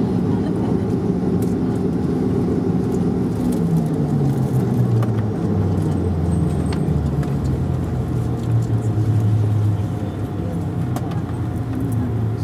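Cabin sound of a Bombardier Q400's Pratt & Whitney PW150A turboprops and propellers running. The engine note drops in pitch about three to six seconds in and then holds as a steady lower hum.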